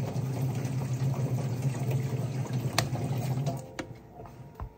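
Steady electric buzz of a dental lab vibrator while dental stone is poured from a rubber bowl to mount a model on an articulator. It switches off about three and a half seconds in, with a sharp click just before and a low knock near the end.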